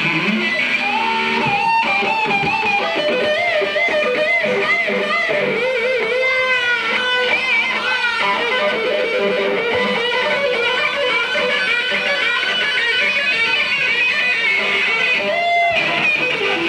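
Electric guitar played solo through an amplifier, with sustained notes that bend and waver in vibrato.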